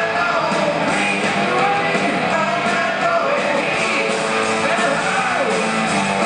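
Live rock band playing rock and roll, heard from the audience in a concert hall: electric guitars, bass and drums, with a singing voice.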